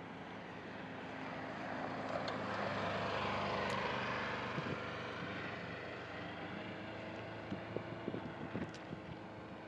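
Train passing at a crossing: a steady engine hum under a rushing rumble that swells to its loudest a few seconds in and then fades, with a few sharp clicks near the end.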